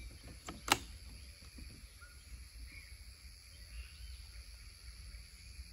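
A single sharp click about a second in as the bolt of a 9 mm (.35) Kong PCP air rifle is closed on a fresh pellet. After it comes a faint, steady insect buzz.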